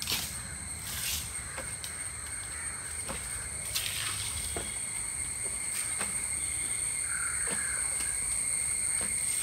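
Crows cawing a few times over a steady high-pitched insect drone.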